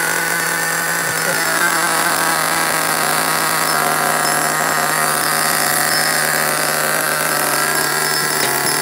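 Small nitro glow engine of a Hot Bodies Tornado RC car running steadily at a high-pitched buzz, on fuel about 14 years old, and running well.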